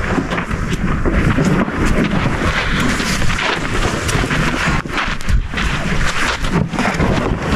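Wind buffeting the microphone of a camera lying on the ground, with a low rumble and scattered dull thuds and scuffs as African elephants walk past close by.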